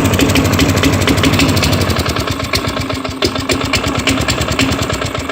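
Craftsman lawn mower's 4.5 hp Tecumseh single-cylinder four-stroke engine running steadily, warmed up after a hard start, its firing gradually getting quieter toward the end.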